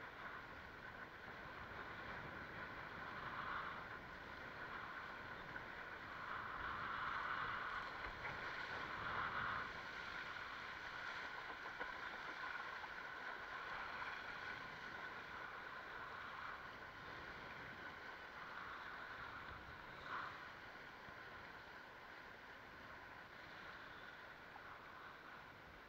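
Water rushing and splashing past the nose of a Fanatic Ultra Cat windsurfing longboard under sail, a steady hiss that swells for a few seconds about a quarter of the way in, with one brief splash later on.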